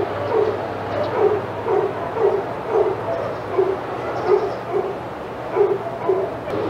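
A dog barking off-camera in a steady run of low, evenly spaced barks, about two a second, stopping shortly before the end, over a faint steady low hum.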